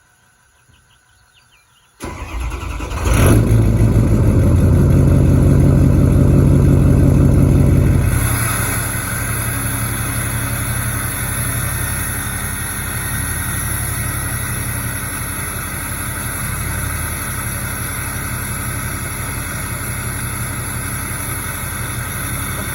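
Ford 6.0L Powerstroke V8 turbo-diesel starting through a 5-inch MBRP straight-pipe exhaust: about two seconds in it cranks briefly and fires, runs loud for about five seconds, then settles into a steady idle.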